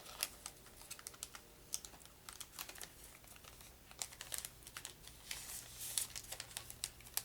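Game cards being handled and set down on a table: irregular light clicks and rustles of card stock.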